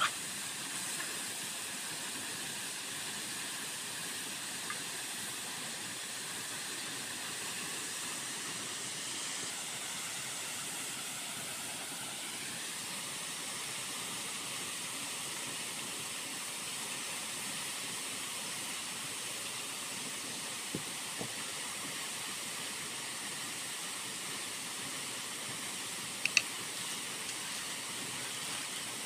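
Steady hiss of a pot of chicken soup boiling on a portable gas stove, with a few faint clicks and a short metallic clink near the end.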